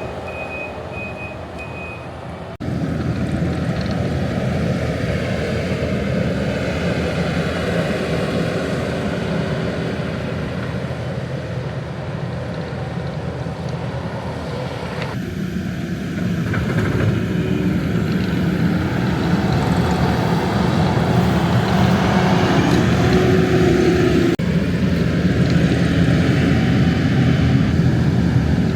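Heavy diesel machinery running, with a reversing beeper sounding for about the first two seconds. A sudden jump to louder engine noise follows, and it grows louder again about halfway through.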